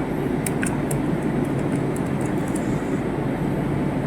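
Steady low rumbling background noise, with a few faint light clicks during the first half.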